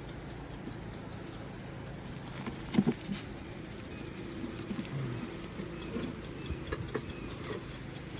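Honeybees buzzing steadily around an open hive, with a short knock about three seconds in and a few light clicks from hive parts being handled.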